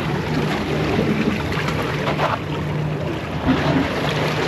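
Wind buffeting the microphone over the wash of sea water, with a steady low hum underneath that drops out now and then.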